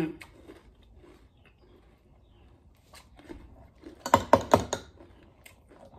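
A metal spoon clinking and scraping against a ceramic cereal bowl, a quick cluster of sharp ringing strikes about four seconds in, with faint small clicks of eating around it.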